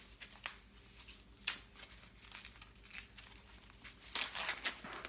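Plastic protective wrap crinkling and tearing as it is pulled off a leather handbag's handles, in short rustling spells, loudest about a second and a half in and again near the end.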